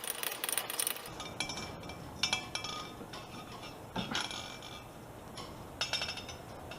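Metal parts of a coilover strut clinking and rattling in several short, irregular clusters as the cap inside the inverted strut is worked loose by hand.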